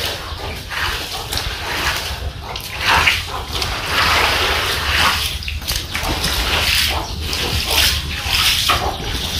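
Shallow floodwater on a house floor splashing and sloshing in irregular surges as barefoot people wade through it and stir it. A steady low rumble runs underneath.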